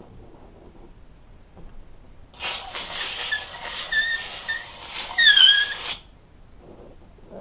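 Upholstery steamer blowing steam from its hose nozzle onto the sundeck's upholstery to soften out a wrinkle: a hiss of about three and a half seconds starting a couple of seconds in, with short squeaks over it, the loudest a falling squeak near the end.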